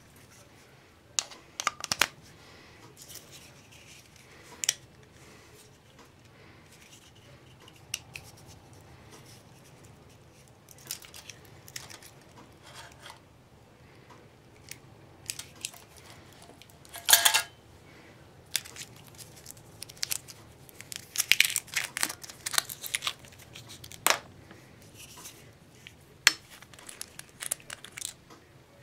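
Handling noise of small plastic and metal kit items: scattered clicks, taps and short rustles as they are picked up and fiddled with by hand. There is a louder rattle just past halfway, and a quick run of clicks a little later.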